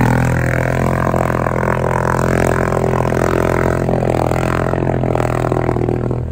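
ATV engine running steadily under load as the quad churns through deep pond water.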